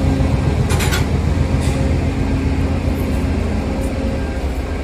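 Diesel-hauled passenger train running: a heavy, steady low rumble with an even hum, and one sharp clank about a second in.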